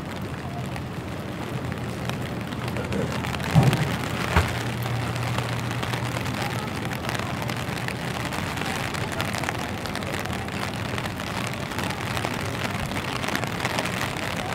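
Steady rain falling on wet pavement. About three and a half seconds in come two dull thumps under a second apart, the loudest sounds here, followed by a brief low hum.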